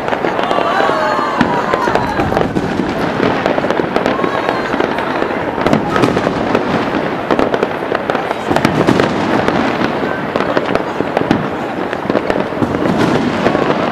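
Taipei 101 New Year fireworks show: a dense, continuous barrage of bangs and crackles with no gaps.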